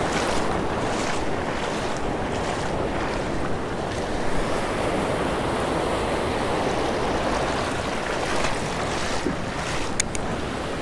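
Ocean surf breaking and washing up a sand beach in a steady rush, with wind buffeting the microphone. Two short sharp clicks come near the end.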